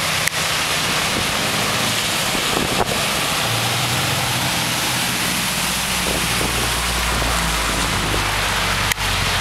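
Heavy rain falling steadily, with vehicles driving through deep floodwater on the road. A low engine hum from a passing vehicle comes in about a third of the way through and carries on.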